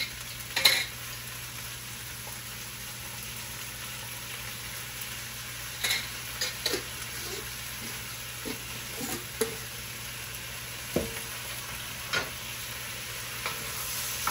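Chopped onion and peppers sautéing in hot oil in a pan, giving a steady sizzle, with a few sharp clicks and taps now and then as they are stirred.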